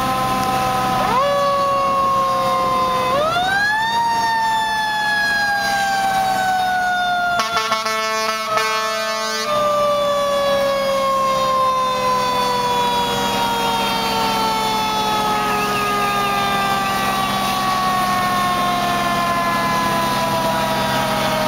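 Fire truck's mechanical siren wound up twice, each time rising sharply, then winding down slowly in pitch over many seconds, over the steady low hum of idling fire-engine diesels. Near the middle there are a couple of seconds of rapid pulsing sound.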